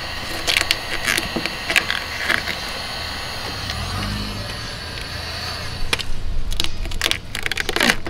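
Clear paint protection film being peeled by hand off a car's painted fender, with crinkling, crackling clicks. The clicks are scattered at first and come thick and fast in the last two seconds.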